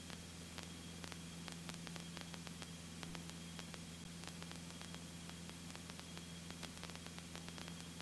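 Steady hiss of a cockpit headset/intercom audio feed in flight, with the Mooney M20C's engine reduced to a faint, steady low drone underneath and scattered faint clicks of static.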